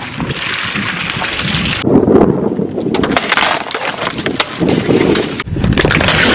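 Crunching and crackling of objects being crushed, in loud noisy stretches that cut off and restart abruptly about 2 and 5.5 seconds in, over a low rumble.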